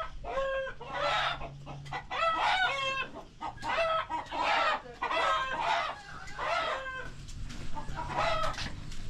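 Chickens clucking: short pitched calls, repeated in runs about once a second.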